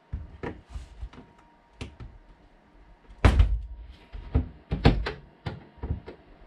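Irregular clicks and knocks of pliers gripping and levering a track pin out of a model railway baseboard, with a few heavier thumps, the loudest about three seconds in and again near five seconds.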